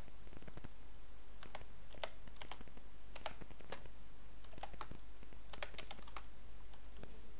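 Typing on a computer keyboard: individual keystrokes clicking in short, irregular runs with brief pauses between them.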